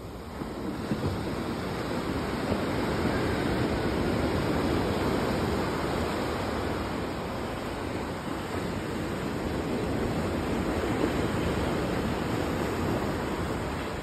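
Ocean surf breaking and washing up a sandy beach: a steady wash of noise that swells and eases slowly.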